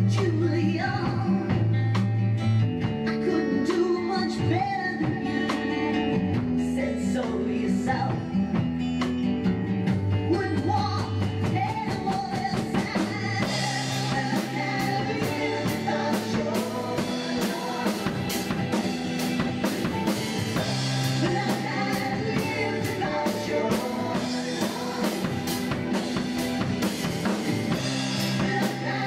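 A rock song with singing and guitar plays, with a drum kit played along over it: drum hits and cymbal crashes.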